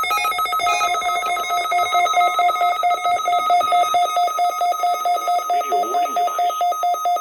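NOAA Weather Radio alert alarm sounding for the required weekly test: a loud, rapidly pulsing electronic tone at a steady pitch, preceded by a few short tones of changing pitch at the very start.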